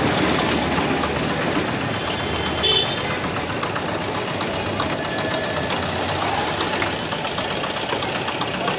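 Busy street traffic noise with a motorcycle engine idling close by. A few short high tones cut through about three and five seconds in.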